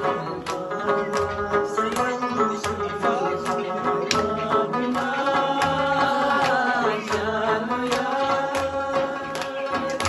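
Live folk music: a rabab plucked and a jingled frame drum beaten, with hands clapping a steady beat about twice a second and a man singing.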